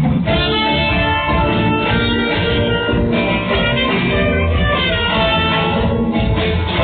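Live music from a band, with guitar among the instruments, playing continuously.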